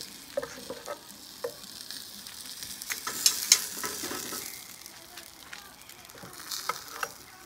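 Spatchcock chicken sizzling over hot charcoal on an Asado grill, with scattered clicks and taps of a spatula against the grill bars and cutting board; the taps come louder and closer together about three seconds in.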